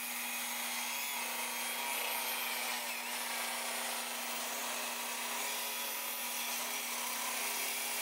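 Table saw running and ripping a thick glued-up block of laminated hardwood along the fence: a steady hum with an even cutting noise over it.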